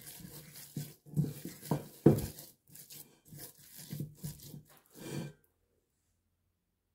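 Hands kneading a soft risen yeast dough mixed with tuna and herbs: irregular rubbing and pulling noises that cut off abruptly about five seconds in.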